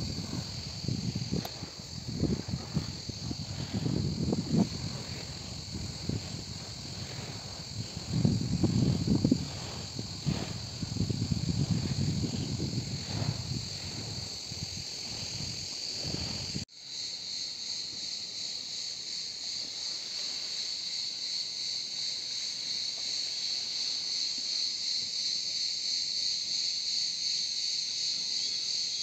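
Cicadas chirring in a steady high-pitched drone. Irregular low rumbling runs under it until an abrupt cut about two-thirds in, after which only the insect chorus is left, gradually louder.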